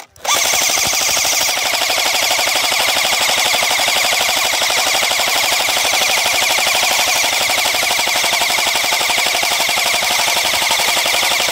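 Airsoft machine gun firing one long full-auto burst: a rapid, even rattle of shots that starts just after the beginning and stops abruptly about eleven and a half seconds in.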